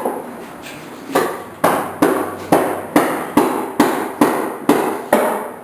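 Steady hammer blows, about two a second, starting about a second in, each a sharp knock with a short ring. They are knocking one side of a pool table up during assembly.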